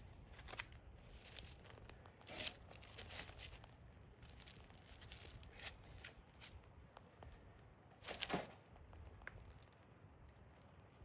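Hardwood embers in a fire pit faintly crackling and ticking with small scattered pops. There are two louder brief noises, about two seconds in and again about eight seconds in.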